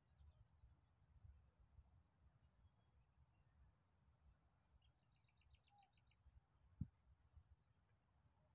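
Near silence: faint outdoor ambience with a steady faint high-pitched tone, scattered small high clicks, and one soft low thump about seven seconds in.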